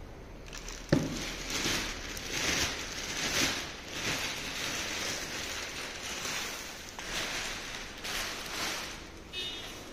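Plastic packing wrap rustling and crinkling as it is peeled off the back of a flat-screen TV and pulled away, with one sharp knock about a second in.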